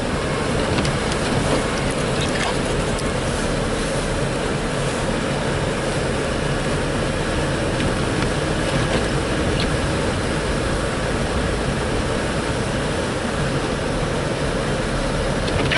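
Heavy snow-removal machinery (front loader, dump trucks) running steadily, a constant engine rumble mixed with wind buffeting the microphone.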